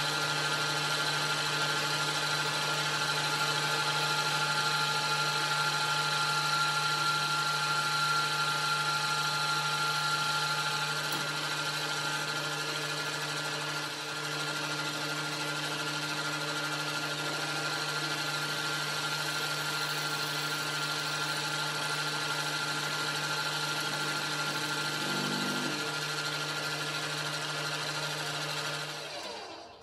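Metal lathe running steadily, its spindle turning an aluminium bar while a twist drill in the tailstock chuck bores into the end. The machine sound cuts off sharply near the end.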